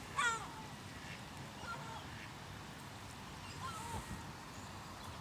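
Ducks calling in the rain: a sharp call that falls in pitch just after the start, then a few fainter calls around two and four seconds in, over a steady hiss of rain.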